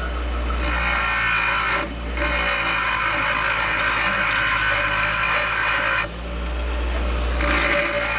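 Electric arc welder running in three welds on a mower bellcrank: a steady frying hiss with a thin whine, which starts and stops abruptly. There are brief breaks about two seconds in and again near six seconds, where a low electrical hum is left.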